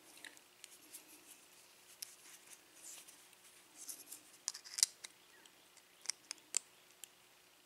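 Small metal tool clicking and scraping against a euro cylinder lock while prying at the retaining clip on the plug: scattered sharp metallic clicks with a short scraping spell around the middle, the loudest click just before the five-second mark, and three quick clicks near the end.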